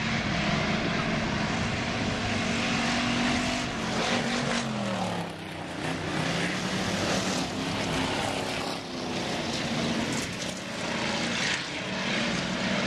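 Several dirt-track stock car engines running at speed around the oval in a steady, loud drone. Their pitch drops and the sound dips about five seconds in, then climbs again as they accelerate.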